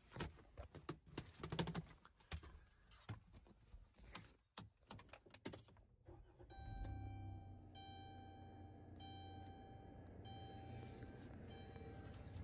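Clicks and rustles of keys being handled. About six seconds in, a steady low hum comes on and the minivan's dashboard chime sounds in a rapid run of repeated electronic tones.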